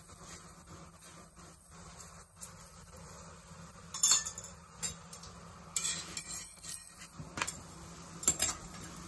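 A steel spoon spreads oil over a roti on a hot iron tawa, with a faint sizzle. From about four seconds in comes a series of sharp clicks and crackles.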